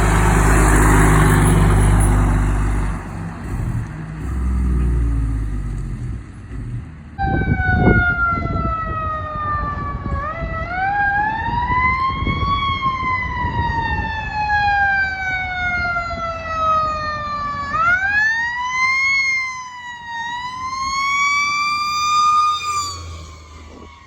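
Loud, low truck noise for the first several seconds, then a fire truck siren wailing: its pitch sinks slowly, then sweeps back up in uneven cycles, and it fades near the end.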